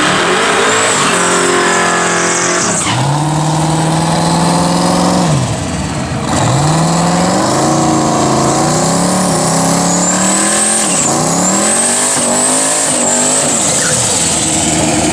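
Turbocharged drag race car accelerating hard down the strip, its engine pitch climbing and then dropping back at each gear shift, several times over. A high turbo whistle rises and falls above the engine.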